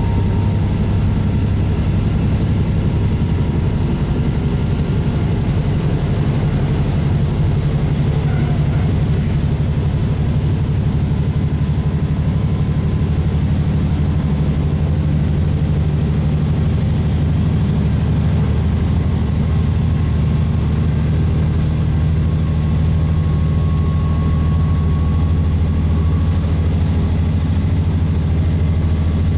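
JR East KiHa 40 diesel railcar's engine running with a steady low drone, its pitch drifting slightly.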